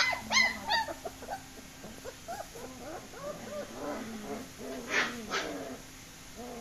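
German shepherd puppies whimpering and yelping. There are a few sharp high yelps in the first second, then a stream of small whining cries, and two louder yelps about five seconds in.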